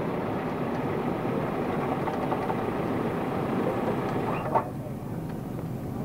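Car engine running with a steady rumble. A short knock comes about four and a half seconds in, after which the noise eases a little. This is the car that keeps jerking and won't run properly.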